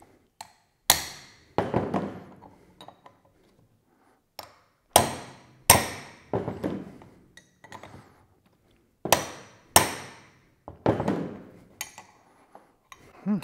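Steel hammer striking a wrench on a Harley-Davidson Sportster rocker shaft nut, about seven sharp metallic blows, mostly in pairs a little under a second apart, each ringing briefly. The blows are meant to shock the nut loose because the rocker shaft turns along with it.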